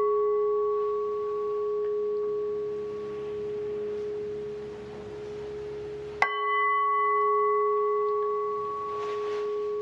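Singing bowl ringing with a long, steady tone that wavers slowly in loudness, struck again about six seconds in, sounded to open a moment of silence for prayer.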